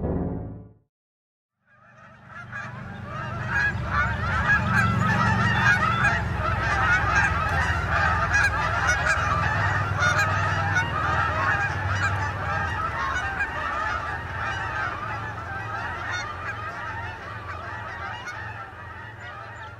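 A large flock of geese honking, many calls overlapping into a dense clamour over a low rumble. It starts about two seconds in after a brief silence, builds for a few seconds, then slowly fades.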